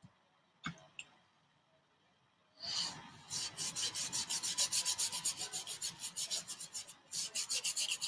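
A paintbrush scrubbing thin, watery oil paint onto a stretched canvas in quick back-and-forth strokes, about seven a second, with a brief pause near the end. Two faint clicks come first.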